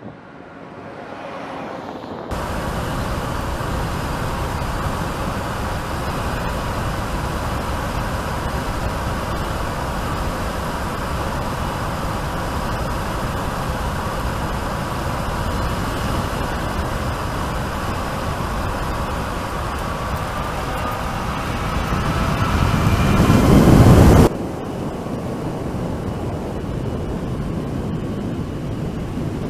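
Mercedes-Benz GenH2 hydrogen fuel-cell electric truck driving by: steady tyre and road rumble with a faint high whine, coming in abruptly about two seconds in. The noise swells loudly as the truck passes close, cuts off suddenly, and a quieter rumble follows.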